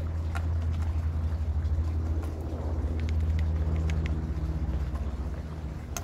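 A steady low motor hum, like an engine running, with a few faint short clicks about three to four seconds in.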